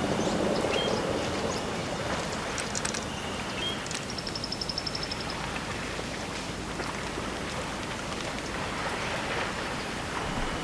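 African bush riverside ambience: a steady noisy wash, with insects buzzing in short high bursts about once a second. About four seconds in there is a quick bird trill of around ten notes, with a few scattered chirps.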